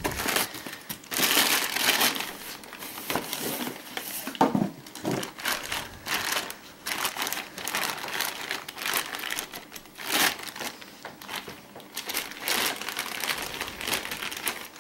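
A clear plastic bag crinkling and rustling in irregular bursts as a new wheel hub bearing assembly is handled and unwrapped from it.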